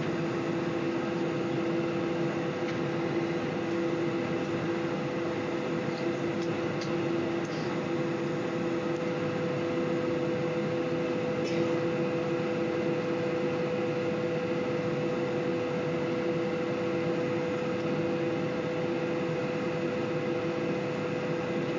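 Steady cabin noise inside a taxiing Boeing 747, its jet engines at idle: an even hum carrying two steady tones, one lower and one higher, that hold unchanged.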